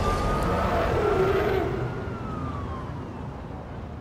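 A siren wailing over a haze of city traffic noise, its pitch slowly rising and then falling, with everything fading out from about halfway through.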